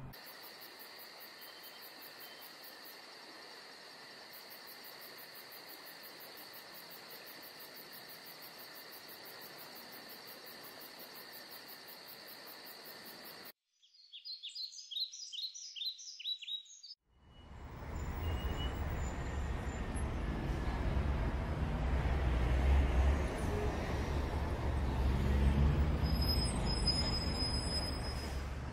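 Night insects trilling steadily at several high pitches, then stopping; after a brief gap, a bird chirps in short repeated phrases for a few seconds. A loud low rumble with hiss then takes over and runs through the rest.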